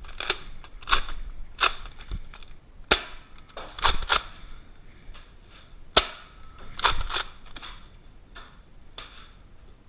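Nerf blasters firing foam darts in a quick, irregular exchange: about ten sharp clacks, bunched in the first seven seconds and sparser after.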